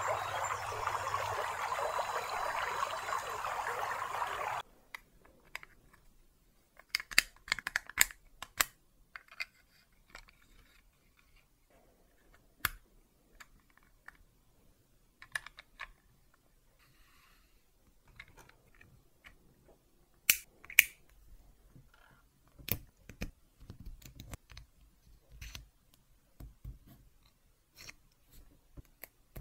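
Lego Technic parts being handled and pressed together: scattered sharp plastic clicks and snaps as pins, axles and beams are fitted onto a turntable gear, the loudest pair about twenty seconds in. Before them, for the first four and a half seconds, a steady rushing noise that cuts off suddenly.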